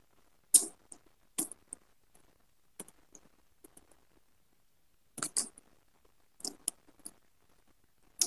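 Close-miked eating sounds of a person chewing fried fish: short smacks and chewing clicks that come in small clusters about a second or two apart.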